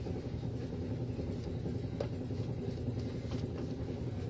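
A steady low hum of background noise, with a few faint, short scratchy strokes over it.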